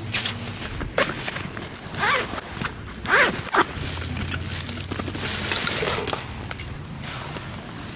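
Zipper on an AO Coolers 24-pack soft cooler being pulled, with a hand rummaging inside among a rustling plastic liner and cans, several sharp knocks and scrapes, then a steadier rustle as a can is drawn out.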